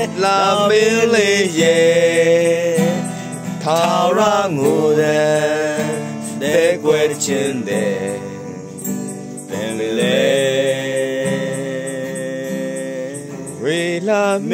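A male voice singing a slow, melodic song with long wavering held notes, over instrumental accompaniment with guitar.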